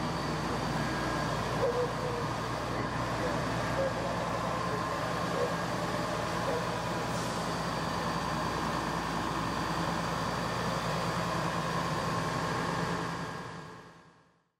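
Steady hum of an FDNY aerial ladder truck's diesel engine idling, with a steady whine over it, fading out near the end.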